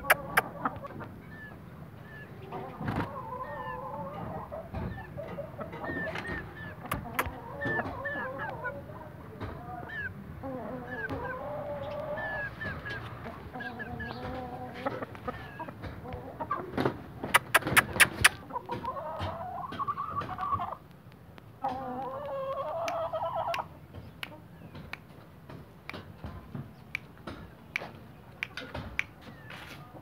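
Aseel chickens clucking and calling, a busy run of short calls. About halfway through comes a quick series of sharp clicks, followed by two longer calls.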